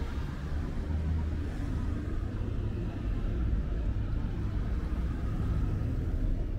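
City street ambience with a steady low rumble of road traffic.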